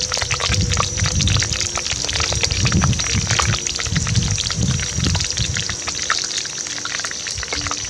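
A whole chicken deep-frying in a wok of hot oil, the oil sizzling and crackling with many small pops. Hot oil is ladled and poured over the bird with a metal spoon, splashing back into the wok.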